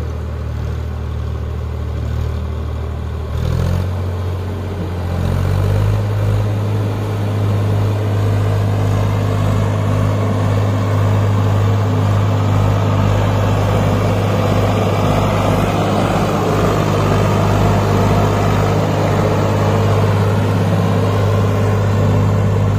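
Eicher 5660 tractor's diesel engine pulling hard under heavy load, hauling a fully loaded sugarcane trailer through deep mud. Its note picks up a little about three and a half seconds in, then holds steady.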